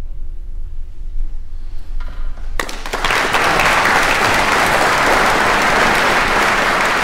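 The last note of a Renaissance lute fades out, then about two and a half seconds in an audience bursts into applause that goes on steadily.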